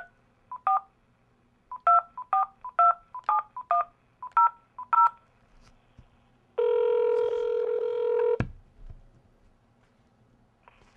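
Touch-tone telephone keypad dialing: about ten short two-tone beeps over five seconds. Then a steady telephone ringing tone for about two seconds, cut off suddenly.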